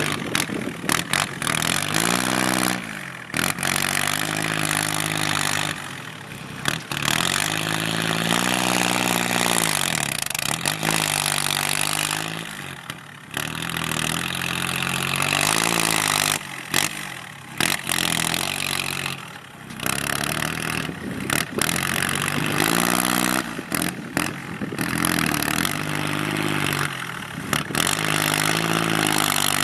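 Kubota L3608 tractor's diesel engine with a loud racing exhaust pipe, revving up and falling back over and over, its pitch rising and dropping every few seconds. The sound drops out sharply for a moment several times.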